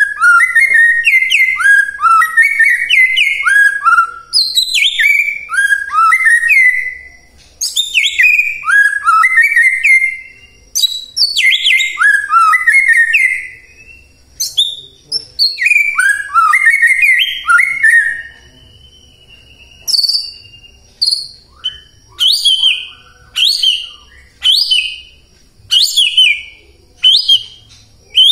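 White-rumped shama (murai batu) singing loudly: bursts of rapid ringing whistled notes, a couple of seconds each, then from about two-thirds through a string of short, sharp downward-slurred notes about once a second.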